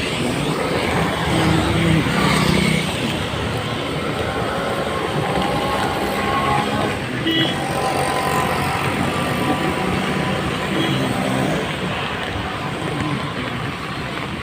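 Steady outdoor street noise of passing road traffic, with faint voices now and then.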